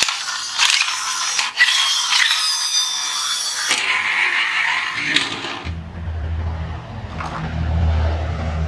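Plastic toy vehicles handled with sharp clicks over a hissing, whistling sound, then a steady low engine drone that sets in a little past halfway.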